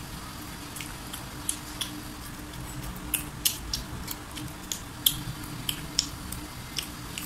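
Close-up chewing of crispy fried food, with irregular sharp crunches and crackles several times a second, over a faint steady hum.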